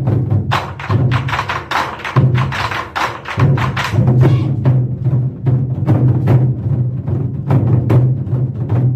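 Korean drum ensemble (Goguryeo-style buk drumming) playing a fast, dense rhythm of many quick stick strikes over a steady deep drum boom, the strikes thickest between about one and three seconds in.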